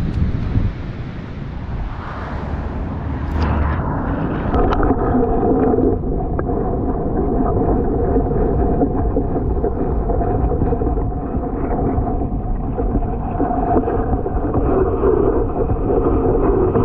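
Wind buffeting a camera microphone over a reedy lagoon, then about four seconds in the camera goes under the water and the sound turns muffled and dull, the high end cut off, with a steady hum and faint gurgling.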